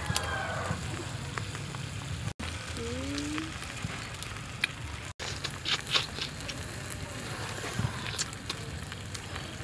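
Crackling and light clicking of grilled prawn shells being broken and peeled apart by hand, with eating sounds. A quick cluster of sharper crackles comes about six seconds in.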